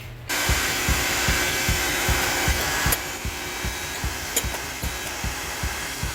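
Powered tubing bender running as it bends exhaust pipe: a steady loud whir with a quick low thumping about four to five times a second, starting abruptly.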